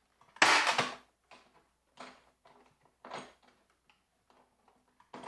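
Gardner Bender Cable Boss cable staple gun firing, driving staples over electrical cable. There is a loud sharp snap about half a second in, then lighter clicks and knocks of handling the tool, and another loud snap at the very end.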